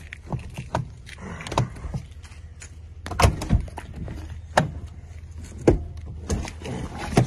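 Scattered clicks and clunks from a locked pickup truck's door: the handle is pulled and a thin wire lockout tool is worked at the door, several separate knocks a second or so apart.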